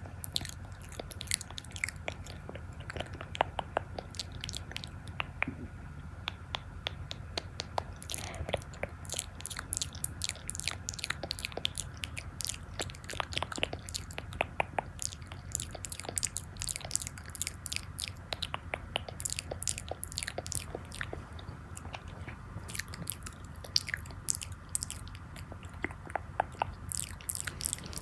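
Close-miked ASMR eating: crunchy bites and chewing, a dense run of sharp crackling clicks.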